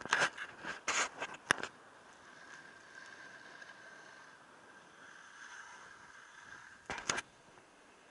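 Sliding down groomed snow: several rough scrapes and rustles in the first second and a half, a fainter steady hiss of gliding, then another short scrape about seven seconds in.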